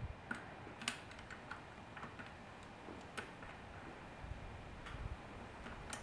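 Faint, scattered small clicks and taps of a bicycle rear derailleur and its shift cable being handled as the cable is threaded through the derailleur, with a couple of soft low bumps in the second half.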